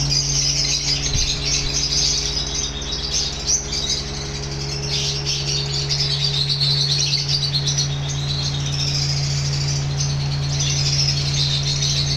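A flock of lovebirds chattering continuously, many high chirps overlapping, over a steady low hum.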